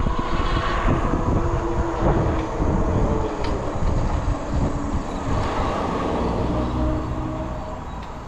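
Wind rushing over the microphone and tyres rolling on pavement while riding an e-bike, with a steady whine from the electric motor. The sound eases off near the end as the bike slows.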